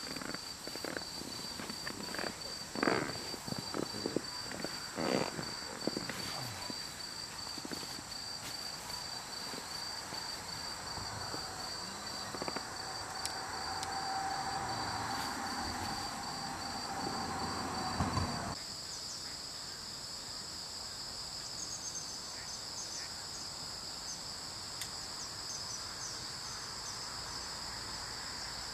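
Crickets chirping in a fast, even pulse. Knocks and rustles come through over the first few seconds, and a hiss with a faint hum builds up in the middle. The hiss cuts off suddenly about two-thirds of the way in, and the chirping gives way to a different steady insect trill.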